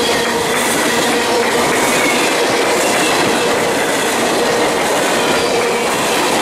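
Freight train of tank cars passing close by at speed: a loud, steady noise of wheels on rail, with faint steady ringing tones above it.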